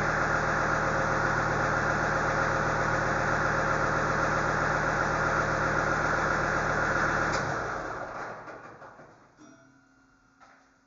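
A motor or engine runs steadily with an even hum, then shuts off about seven seconds in and winds down to quiet over a couple of seconds.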